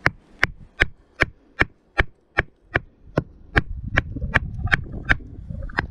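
Geological hammer tapping steadily on shale, about two and a half sharp ringing strikes a second, chipping at a block to free an ammonite. A low rumble joins in under the taps in the second half.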